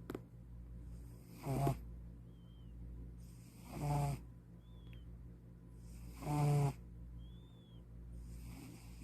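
A white domestic cat snoring in its sleep: three loud rasping snores, about two and a half seconds apart, and a fainter one near the end. A faint, short high whistle comes between the snores.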